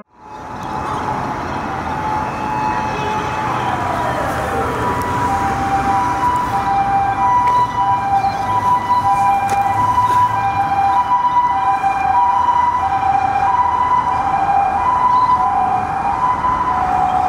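An ambulance's two-tone hi-lo siren sounds, alternating evenly between two pitches and growing slightly louder, over the steady rush of road traffic. A single tone falls in pitch a few seconds in.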